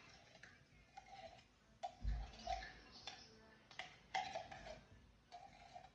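A can of condensed cream of mushroom soup being emptied into a glass baking dish: faint metallic clicks and scrapes, some briefly ringing, with a dull thump about two seconds in.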